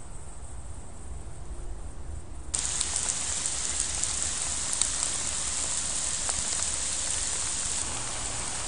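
Heavy rain falling, a dense steady hiss with scattered drop ticks. It starts abruptly about two and a half seconds in, after a short quieter stretch that holds only a low rumble.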